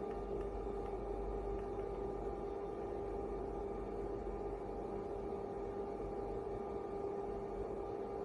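A steady electrical hum: one constant mid-pitched tone with fainter overtones above it, over a low rumble.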